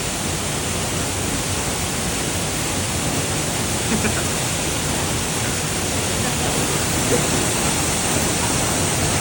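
Steady loud rush of falling water from a waterfall, an even roar without change.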